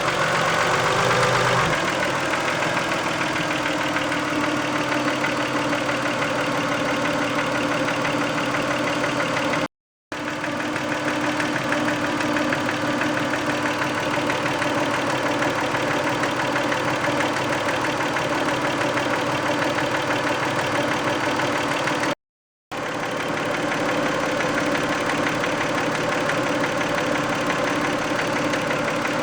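Toyota 2VZ-FE 2.5-litre V6 in a 1990 Camry running with an engine knock, settling from a higher speed to a steady idle about two seconds in. The owner's best guess is sludge or varnish stuck on a valve shim or bucket. The sound cuts out briefly twice.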